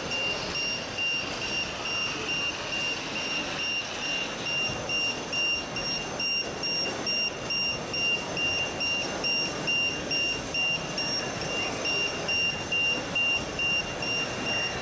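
Reversing beeper of a 1:14-scale RC model truck's sound module: a single high-pitched beep repeating steadily a little under twice a second.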